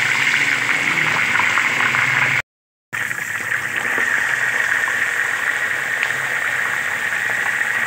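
Camel shank pieces deep-frying in very hot oil in a wok: a steady, loud sizzle and bubbling with fine crackle. The sound cuts out for about half a second roughly two and a half seconds in, then carries on the same.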